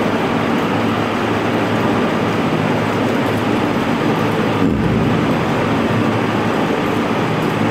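Steady, loud background noise with a low hum beneath it, and no speech; a brief low thud just past the middle.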